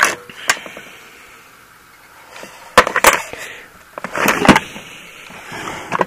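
Metal hand tools clinking and clattering as they are handled and shifted in a wooden tool chest drawer, in a few short bursts with pauses between.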